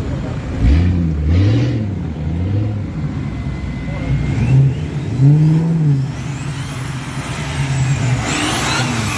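Off-road 4x4s driving past one after another, their engines revving up and down. In the last few seconds a high whistle glides up and falls away.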